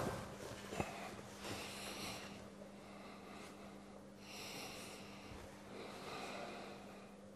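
A person's quiet breaths through the nose, about four soft hisses a second or two apart, over a steady low electrical hum.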